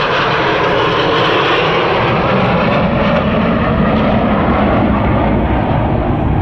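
Four F-35A Lightning II fighter jets flying past in formation, their single Pratt & Whitney F135 engines making a loud, steady rushing jet noise that turns to a lower rumble a few seconds in as they move away.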